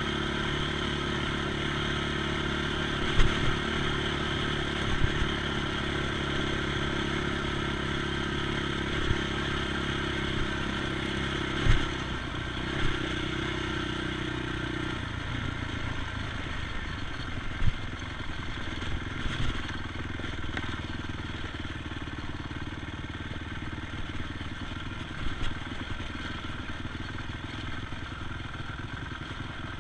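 ATV engine running at a steady pitch, with scattered knocks and rattles over it. About halfway through, the engine note shifts and turns rougher.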